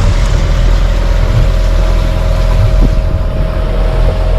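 Sailboat's engine running steadily as the boat motors away from the anchorage, a steady whine over a rushing noise. The high hiss drops away about three seconds in.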